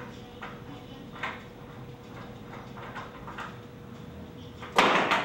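A socket wrench snugging bolts into a wooden bed frame: faint scattered clicks, then one short loud clatter near the end.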